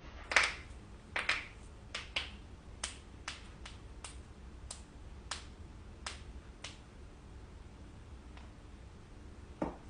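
Joints cracking: a dozen or so sharp pops at irregular intervals of about half a second over the first seven seconds, then a deeper pop near the end.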